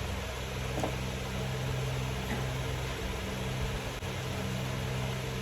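Steady low electrical or machine hum with a constant hiss, with a couple of faint light taps about one and two seconds in.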